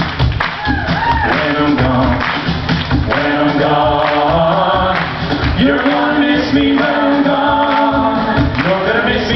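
A group of voices singing together in harmony, holding long notes, with hand claps keeping the beat.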